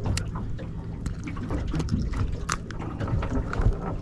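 Water sloshing against a small boat's hull under a low steady rumble, with scattered sharp clicks and knocks as metal pliers work a hook out of a fish's mouth.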